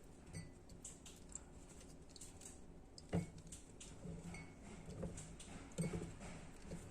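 Faint, scattered light clicks and taps, with a sharper knock about three seconds in, as washed oregano leaves are put into a drinking glass.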